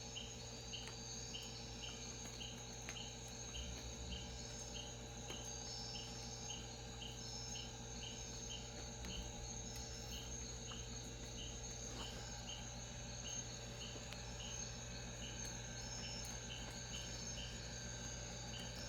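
Faint night chorus of crickets and other insects in woodland: steady high shrill tones, with a short high chirp repeating about twice a second, somewhat unevenly.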